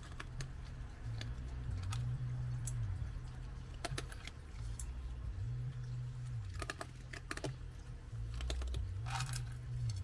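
Raccoon eating dry kibble: irregular sharp crunching clicks every second or so, with a quick cluster near the end. A low hum that shifts up and down in pitch runs underneath.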